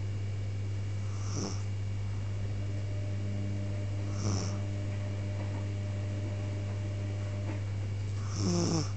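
A sleeping pet snoring three times, a few seconds apart, each snore falling in pitch; the last is the longest. A steady low hum runs underneath.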